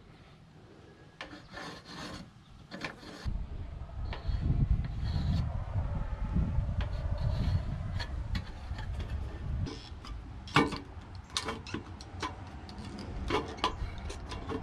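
Formed sheet-metal trim sliding, scraping and clicking against the metal roof panels as it is pressed and fitted into place by hand, with several sharp metal clicks after about ten seconds. A low rumble runs underneath from about three to ten seconds in.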